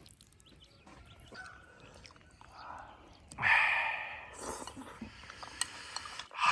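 People eating at a table: quiet chewing, then a loud breathy rush of air about three and a half seconds in and another near the end, the sort of sharp breath out that comes with very spicy chilies.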